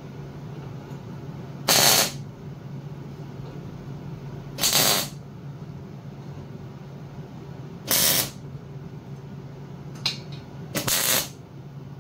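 MIG welder laying four tack welds on steel bracket plates, each a short burst of about half a second, roughly three seconds apart.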